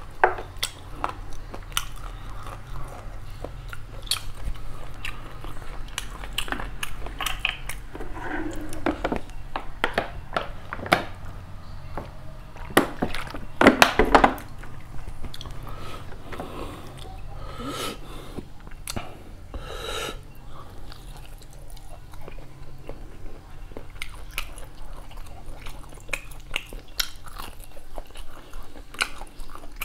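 A person chewing and biting mouthfuls of beef curry and rice eaten by hand, with frequent short mouth clicks. A louder burst of eating noise comes a little under halfway through.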